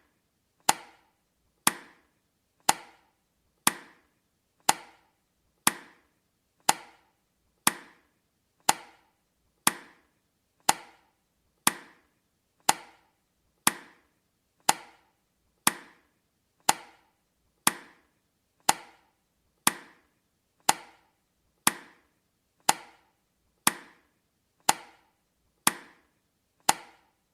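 Countdown timer's tick sound effect: a sharp, woody click with a short decay, repeating evenly once every second to mark each second counted down.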